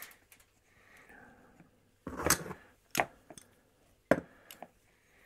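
Metal pliers handled on a wooden workbench: a handful of short knocks and clicks, the loudest a little after two seconds in, with sharper taps around three and four seconds in.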